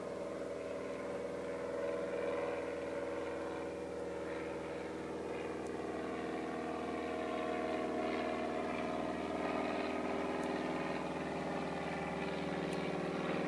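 Small propeller airplane flying past, its engine giving a steady drone.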